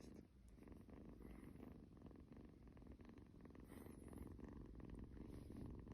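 Kitten purring softly and steadily, close to the microphone.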